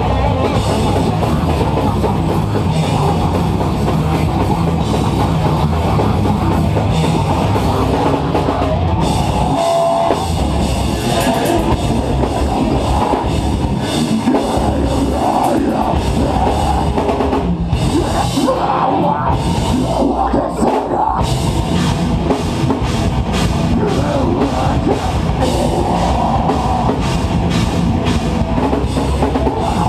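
A metal band playing live: heavily distorted guitars over a drum kit with cymbals, dense and loud. The low end drops out briefly a few times, around ten seconds in and again around eighteen to twenty-one seconds.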